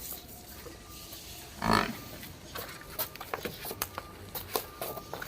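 A water buffalo making one short, loud vocal sound about two seconds in, amid scattered small clicks and knocks.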